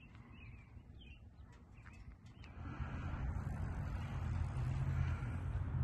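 Small birds chirping a few times. About halfway through, a steady low rumbling noise rises and drowns them out.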